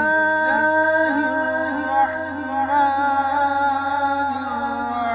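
Singing: one voice chanting long held notes that waver slowly in pitch.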